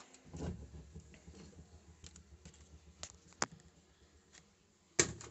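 Handling noise from tools and objects being moved about on a workbench: scattered light clicks and knocks, with a sharp click about three and a half seconds in and a louder knock near the end.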